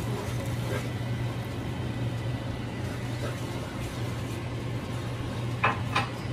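A steady low hum, with two short knocks near the end.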